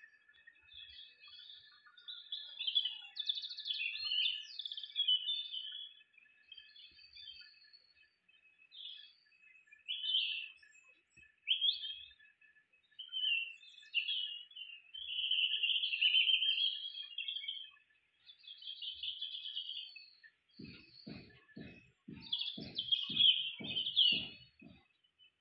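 Birds chirping and singing, a busy mix of short chirps and quick rising and falling whistles. In the last few seconds a run of soft low thumps, about two and a half a second, joins them.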